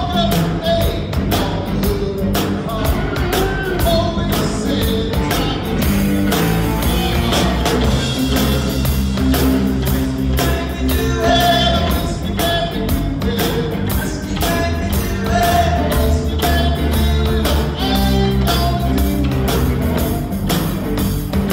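A rock band playing live on electric bass, electric guitar and drum kit, with steady drum and cymbal hits.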